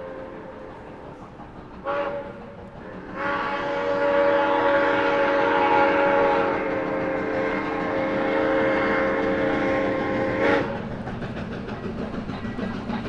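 Steam whistle of Soo Line 1003, an ALCO 2-8-2 Mikado steam locomotive, sounding a chord: the end of one blast fading out, a short toot about two seconds in, then one long blast of about seven seconds. After it cuts off, the train runs on with a low rumble.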